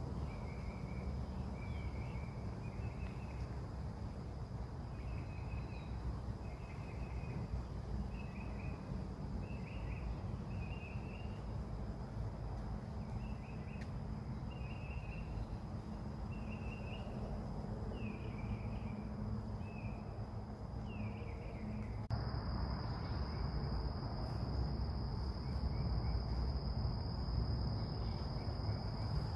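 Outdoor ambience of a steady high insect trill, crickets or similar, with a low rumble underneath. Short chirping calls repeat every second or so until about three-quarters of the way through. There the sound changes abruptly, the chirps stop and the trill becomes louder.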